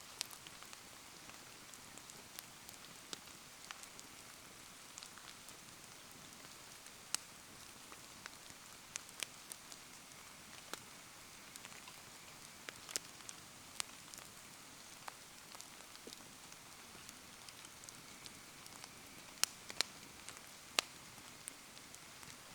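Wood bonfire crackling in steady rain: a constant patter of rain with irregular sharp pops and snaps from the fire, a few louder ones close together near the end.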